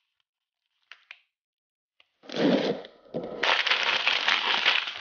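Crinkled yellow packaging bag of tools and accessories being handled and torn open, a loud crackling and crinkling that starts about two seconds in, after a couple of faint clicks.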